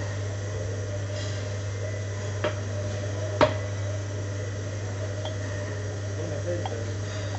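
Steady low machine hum behind a café counter, with two sharp knocks about a second apart, the second louder, as a steel milk pitcher and ceramic cup are set down and handled on the counter.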